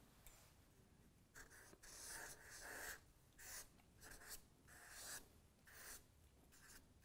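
Felt-tip marker drawn across flip-chart paper in a series of about ten short, faint strokes, writing a word by hand.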